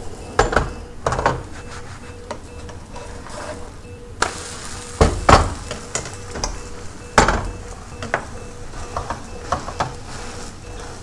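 A frying pan knocking and clattering on a gas hob, with a spatula scraping under a pancake in the pan and batter sizzling. Sharp knocks come on and off throughout, loudest about five and seven seconds in.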